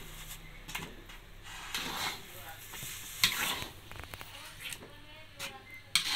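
Metal spatula stirring thick, sticky tapioca-starch batter in an aluminium wok as it cooks into a paste, with a few sharp knocks of the spatula on the pan, the loudest about three seconds in and just before the end.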